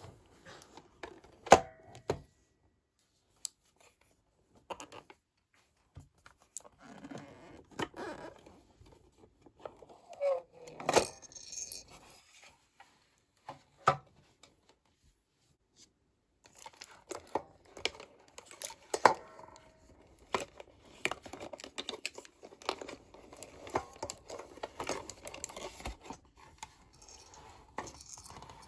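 Hands handling a plastic toy doctor set's carry case and its small pieces: scattered sharp plastic clicks and taps between stretches of soft rustling and crinkling, with a few short quiet pauses.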